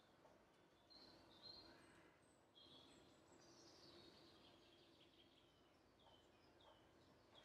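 Faint outdoor ambience with birds chirping: short high chirps scattered every second or so, and a longer falling run of notes about four seconds in.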